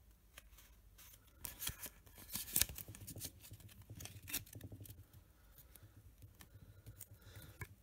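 Pokémon trading cards handled in the hands: a quiet, irregular run of clicks and snaps as card edges slide over one another and the stack is squared, thickest in a cluster about two seconds in.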